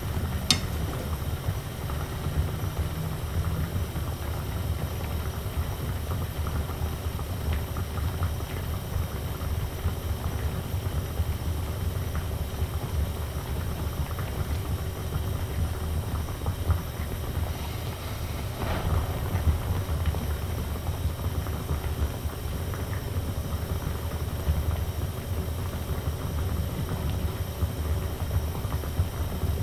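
A salmon head simmering in a pan on a portable gas stove, heard as a steady low rumble. A sharp click comes just after the start, and a short rustle about two-thirds of the way through.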